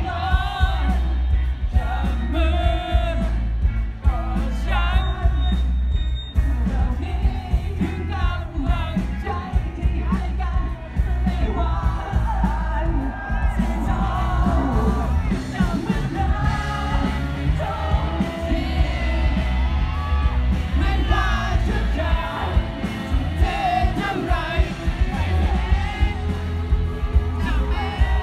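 Live band performance: a male singer singing over electric guitar, drums and keyboard, with a heavy, booming bass.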